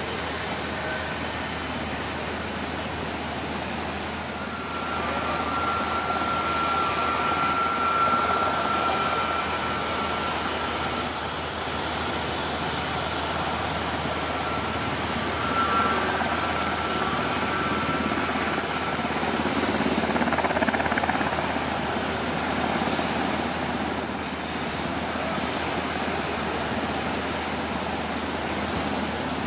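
Airbus A321neo's Pratt & Whitney PW1100G geared turbofans at taxi power: a steady rushing noise with a high engine whine that comes in about five seconds in and fades by the last third.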